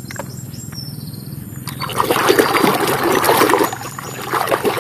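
Water splashing and trickling as a muddy toy bus is rinsed clean. It starts about two seconds in, after a few light clicks.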